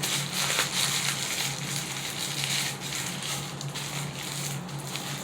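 Close-miked chewing of food: irregular wet, crunchy mouth clicks, with a low steady hum underneath.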